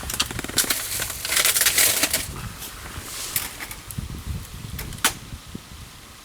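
Burning firewood crackling and snapping in a campfire, with irregular small cracks, a denser crunching rustle about a second in and one sharp crack about five seconds in.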